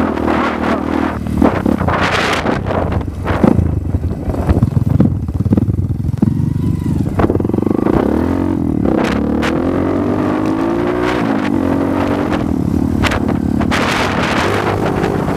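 Dirt bike engine heard from on the bike while riding a rough dirt trail, its pitch rising and falling with the throttle, with short knocks from the bumpy ground. It settles to a steadier, lower run near the end.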